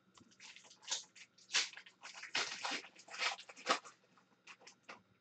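Hockey card pack wrapper crinkling and tearing as it is ripped open by hand: a quick run of irregular rustles and crackles for about four seconds, then a few faint ticks.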